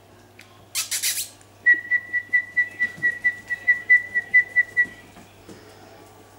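Whistling in a quick run of short notes at one high, unchanging pitch, about five a second for some three seconds, just after four quick hissing sounds.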